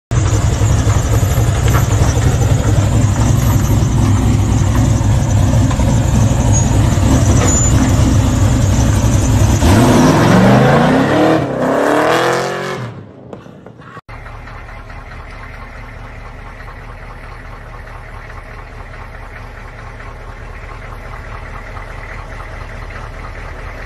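NASCAR-style #48 stock car's V8 idling with a loud deep rumble, then revving up as the car pulls away about ten seconds in, rising in pitch through a couple of gear changes before fading out. After a sudden cut, a much quieter steady engine hum.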